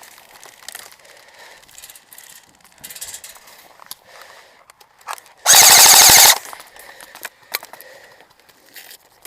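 A short full-auto burst from an airsoft gun fired close by, a rapid even string of shots lasting under a second, a little past the middle. Scattered single airsoft shots crack faintly around it.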